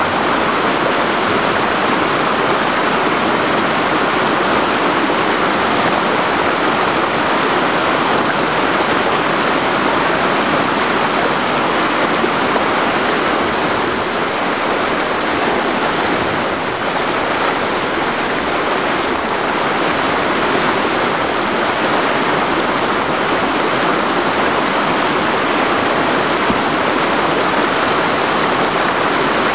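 Rushing whitewater in a river rapid: a loud, steady, dense noise of churning water that dips slightly for a moment just past halfway.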